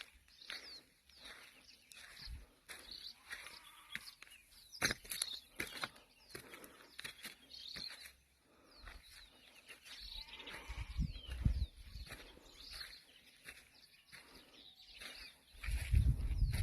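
Scattered short animal calls and high bird chirps, with a few sharp clicks. Bursts of low rumble come about ten seconds in and again near the end.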